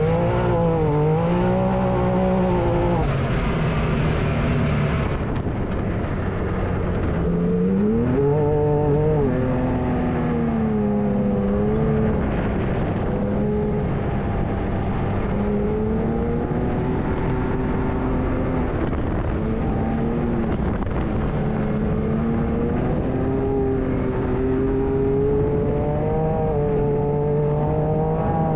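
Can-Am Maverick X3 side-by-side's three-cylinder engine pulling around a dirt track, its pitch rising and falling with the throttle and climbing sharply about eight seconds in.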